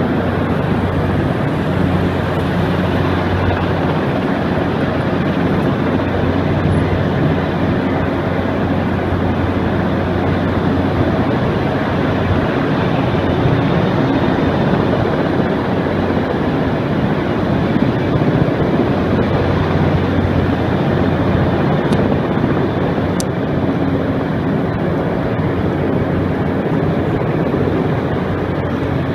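Sikorsky S-58 heavy-lift helicopter hovering close overhead with a sling load, its rotor and engine running steadily and loudly with a low hum.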